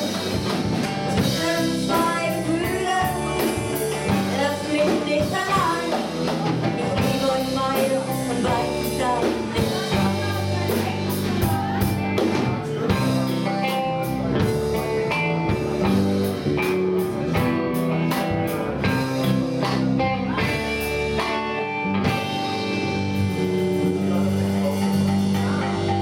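A live rock band playing: a woman sings over electric guitars, bass guitar and drums for the first several seconds, then the band plays on without vocals, the guitar carrying the tune.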